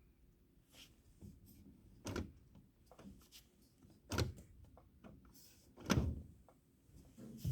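Four separate clunks of a portable cassette deck being handled, typical of the cassette door and transport keys being worked before playback.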